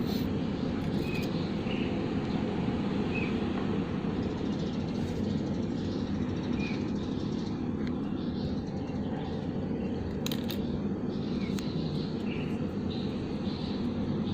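Steady low background rumble, with short faint high chirps every second or two and a couple of sharp clicks late on.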